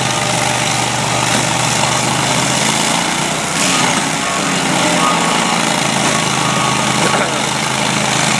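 Stump grinder's small gasoline engine running steadily at a constant speed.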